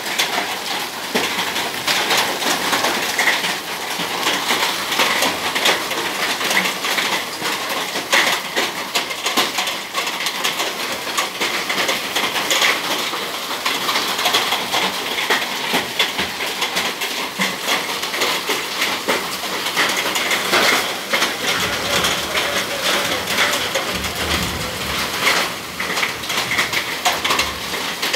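Heavy hailstorm: hailstones and rain falling hard, a dense, steady clatter of stones hitting the concrete ground and nearby hard surfaces. A low rumble rises in the background about three-quarters of the way through.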